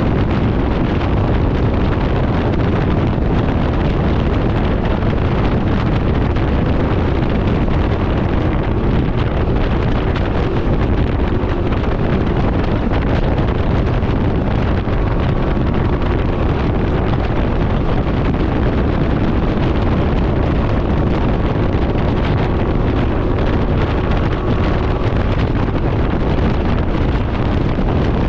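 Steady wind rush buffeting the microphone at riding speed on a Can-Am Ryker 900, with the three-wheeler's running and road noise underneath.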